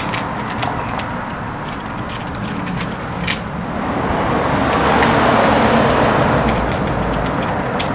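Passing road traffic: a steady rush that swells as a vehicle goes by about five seconds in, then eases. Light metallic clicks of bolts and washers being handled and screwed into a frame sound over it, the clearest about three seconds in.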